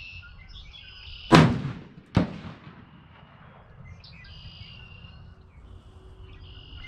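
A 6.5 PRC rifle (Christensen Arms MPR) fires a single loud shot, with a long echoing tail; it is the first round through a new barrel during break-in. Under a second later comes a second, shorter sharp crack. Birds chirp faintly in between.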